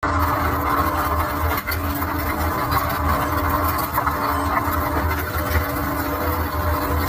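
Fishing vessel's engine running with a steady drone, under a steady rushing noise of wind and sea.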